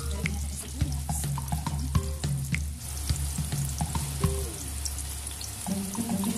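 Sliced red onions frying in hot oil in a pot, a steady sizzle with crackling and scattered sharp clicks, over background music.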